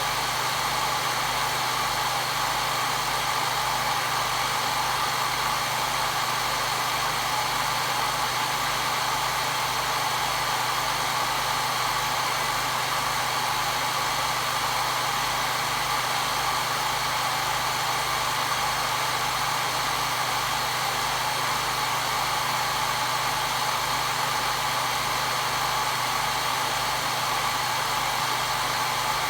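Hair dryer running continuously at a steady speed, a constant whooshing fan noise with a motor hum underneath, used as white noise to calm a crying baby.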